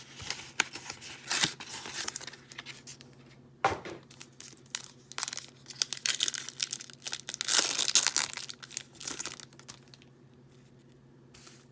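Foil Yu-Gi-Oh booster pack being torn open and its wrapper crinkled, in irregular bursts of crackling that die down near the end.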